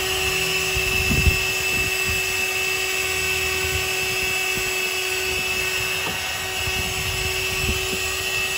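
Cordless handheld vacuum cleaner running steadily with a high motor whine, its extension nozzle sucking debris from the carpet under a car seat. A low knock sounds about a second in as the nozzle bumps the seat trim.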